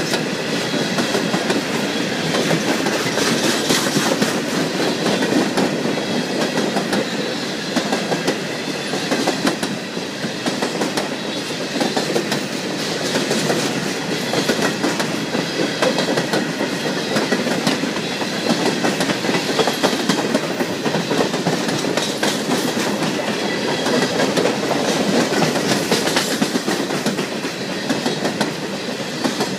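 CSX freight cars rolling past close by: steel wheels running on the rails in a loud, steady rolling noise with a constant clatter of clicks and clacks.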